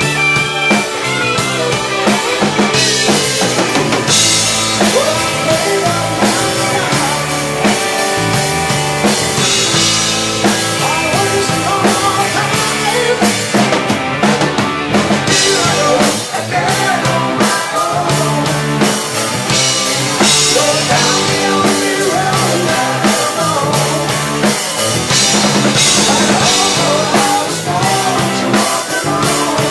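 A live rock band playing a hard-rock song: distorted electric guitars and keyboard over a drum kit keeping a steady beat.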